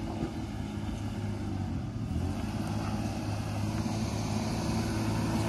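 Stock Toyota Prado's engine running steadily under load as the 4WD climbs a muddy, rutted incline, slowly getting louder.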